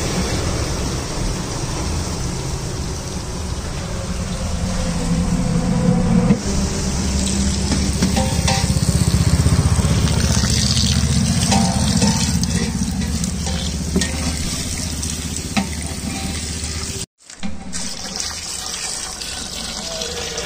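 A stream of water pouring into a large aluminium pot of chicken masala, splashing steadily into the gravy. The sound cuts out briefly about 17 seconds in.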